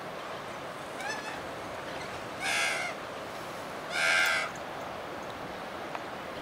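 A bird calling three times, short calls of about half a second each: a faint one about a second in, then two louder ones about a second and a half apart.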